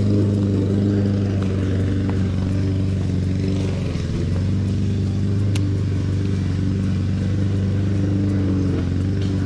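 A motor running with a steady low hum, its pitch and loudness unchanged throughout, with one faint click about five and a half seconds in.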